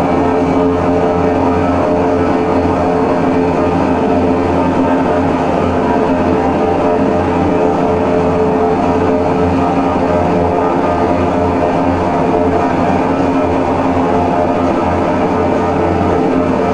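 Loud drone noise music played from a laptop: a dense, unbroken wall of sound with a few held tones over a heavy low hum, changing little throughout.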